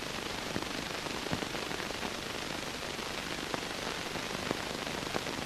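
Steady background hiss with scattered faint crackles and clicks.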